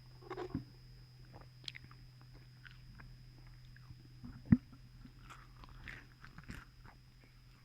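Close-miked biting and chewing of fast food, with small scattered crunches and one sharp, loud crunch about four and a half seconds in.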